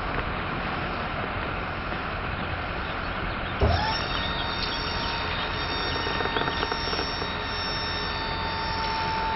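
A motor starts with a thump about a third of the way in, its whine rising fast and then holding one steady high pitch, over a steady low engine rumble.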